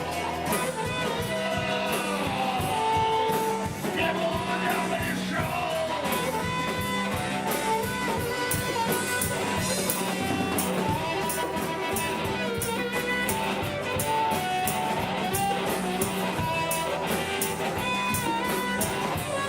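Live rock band playing: guitar and a drum kit keeping a steady beat under a sustained melody line.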